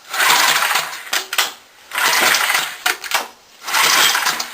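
Small go-kart engine being cranked over three times in quick succession without catching. Each turn-over is a rattling burst about a second long.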